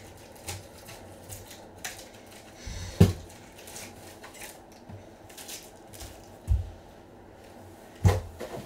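Scattered light clicks and knocks of things being handled, with a sharp click about three seconds in and dull thumps at about six and a half and eight seconds.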